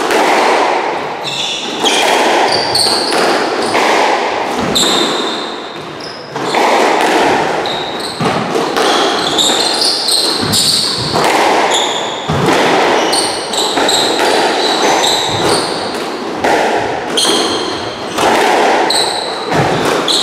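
Squash rally: the ball cracks off the rackets and the court walls every second or so, each hit echoing around the court, mixed with the sharp squeaks of court shoes on the wooden floor.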